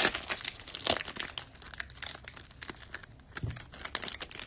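Foil wrapper of a Chronicles basketball hobby pack crinkling and tearing as it is ripped open by hand: an uneven run of crackles with a louder snap about a second in.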